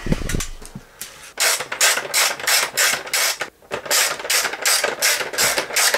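Hand ratchet wrench clicking in quick repeated strokes, about two or three a second, as a bolt is wound in. A low knock and scrape comes just before the strokes begin.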